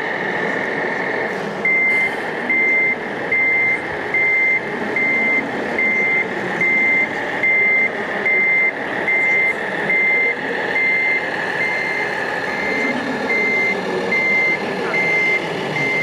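Reversing beeper of a scale RC semi-truck's sound module, beeping steadily about once a second as the truck backs up its silo trailer. The beeping starts about a second and a half in, over a steady hum and background noise.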